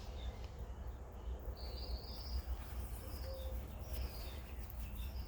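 Birds chirping: a few short high calls, with a steady low rumble underneath.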